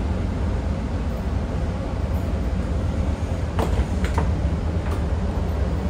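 Interior of a Siemens P2000 light-rail car: a steady low rumble, with a few light clicks or knocks in the second half.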